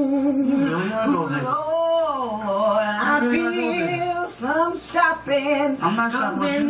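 A woman and a man singing a cappella, holding long notes that slide up and down in pitch, an improvised tune about going shopping. It is played through a television speaker and picked up by a phone.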